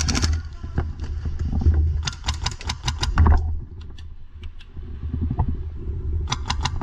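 Airsoft rifle fire in rapid bursts of sharp snaps, several a second: one burst at the start, a longer one about two seconds in, and another near the end, over a steady low rumble.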